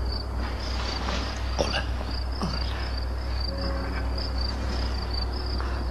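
Crickets chirping steadily, about three chirps a second, over a low steady hum.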